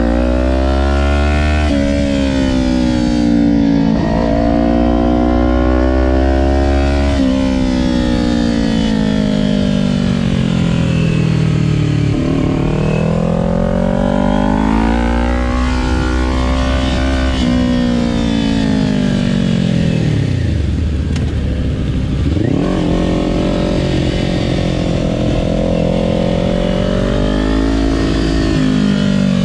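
Kawasaki Ninja 400's parallel-twin engine heard from on board, its pitch climbing and falling again and again as the rider accelerates, shifts and slows for corners. There are sudden drops in pitch at gear changes, and a deep low point about three-quarters of the way through before it winds up again.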